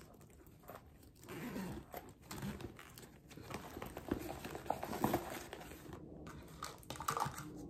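Rustling and small knocks of a wallet being pushed into a Nine West tote bag and shuffled around among its contents, coming in uneven bursts.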